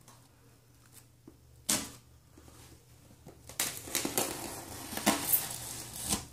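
Knife blade slicing through the packing tape and cardboard of a shipping box: a run of short scratchy cuts in the second half, after a single sharp knock about a second and a half in.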